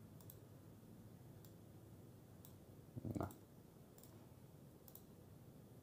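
Faint computer mouse clicks, about one a second, over near silence, with a brief low noise about three seconds in.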